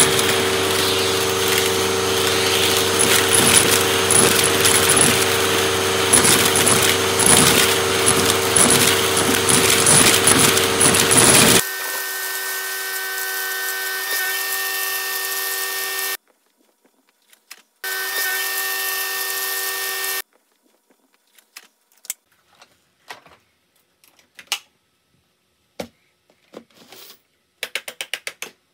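Canister vacuum running with bits of paper crackling and rattling up through its hose. About twelve seconds in the crackle stops and only the motor's steady whine remains; the whine cuts out, runs again for a couple of seconds, then stops, leaving scattered light clicks and clatter.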